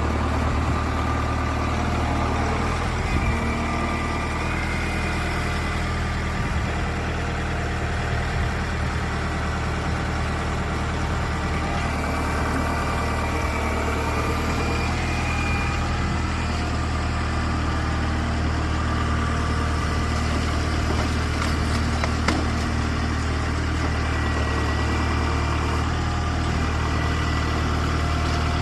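Heavy machine engine running steadily at an even speed, like idling, with a single sharp knock about three-quarters of the way through.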